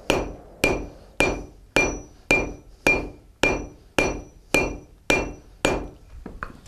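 Blacksmith's hand hammer striking a red-hot iron horseshoe end on the horn of an anvil, forging it into shape. The blows come steadily about twice a second, each with a short metallic ring, and turn into a few lighter, quicker taps near the end.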